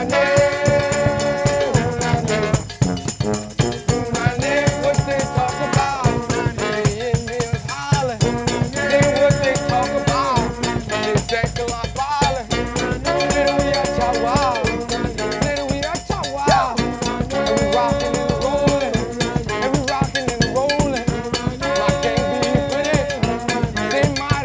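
Mardi Gras Indian funk music: singing in repeated held phrases over a steady groove of drums and shaken rattles.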